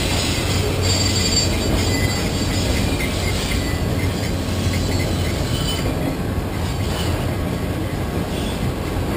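Freight train of autorack cars rolling past: a steady rumble of steel wheels on rail, with faint high wheel squeal in the first two seconds.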